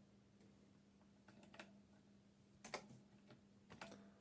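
Faint, scattered keyboard key presses: a handful of single clicks spaced about a second apart, over a low steady hum.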